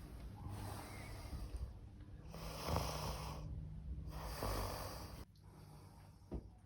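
A man snoring in his sleep: three long, rasping snores about a second and a half apart, then a short tap near the end.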